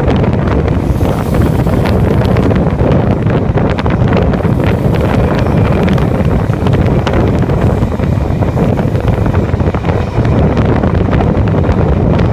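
Strong wind rushing and buffeting over a phone microphone held at the open window of a moving V-set train, over the steady rumble of the train running along the track.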